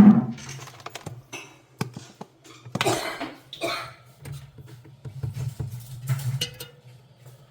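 Hard parts clattering and knocking, a string of sharp clinks and thuds with the loudest at the start and about three seconds in, over a steady low hum.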